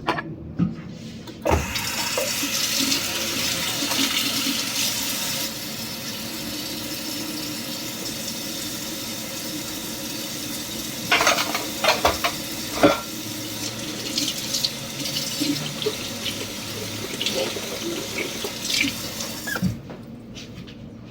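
Water running steadily for about eighteen seconds, louder for its first few seconds, with a few sharp knocks partway through, then cut off.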